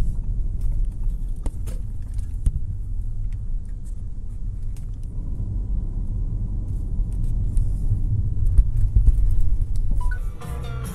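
Low, steady road and engine rumble of an Audi A7 Bi-Turbo diesel heard from inside the cabin while driving at low speed. Background music starts near the end.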